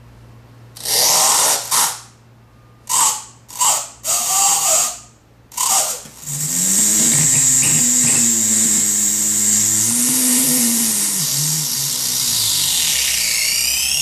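Circuit-bent 'Sounds of Nature' flashlight toy playing its glitched, pitch-bent sound samples: several short bursts of harsh noise, then a sustained hissing buzz over a warbling low tone, which slides upward in pitch near the end.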